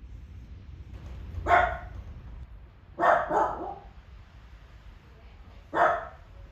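Dog barking: four short barks, one, then a quick pair, then one more near the end, over a steady low rumble.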